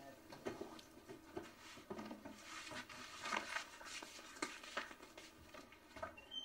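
Faint, irregular soft taps and rustles of a person getting up from a sofa and walking across a room: footsteps with clothing and a book rustling.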